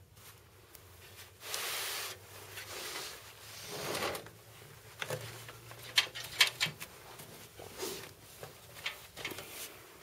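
Handling noise on an empty steel PC case: rubbing and scraping in the first few seconds, then a string of sharp clicks and knocks, the loudest about six seconds in.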